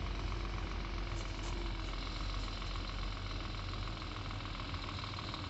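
Scania 440 truck's diesel engine running steadily as the truck drives slowly along the dirt track, a low even hum with no change in revs.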